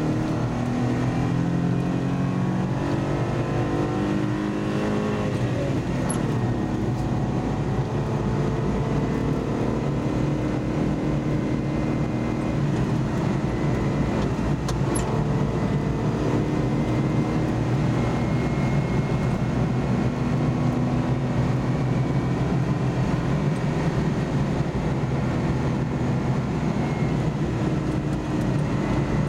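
Car engine and road noise heard from inside the cabin while driving. The engine note rises over the first few seconds, drops sharply about six seconds in, then climbs slowly again and settles to a steady cruise.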